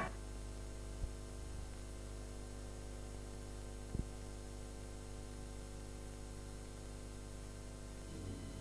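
Steady low electrical hum made of several constant tones, with two faint clicks, about one second in and about four seconds in.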